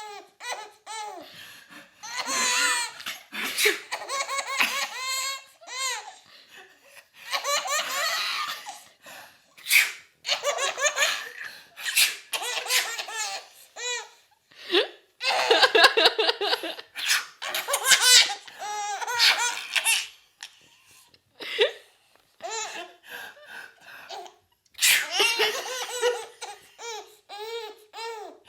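A baby laughing in repeated bouts of high-pitched belly laughs, set off by a man's sneezes, which come as short sharp bursts between the laughs.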